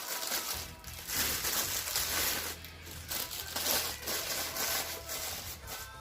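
Plastic packaging crinkling and rustling in uneven bursts as the toy is handled, over background music.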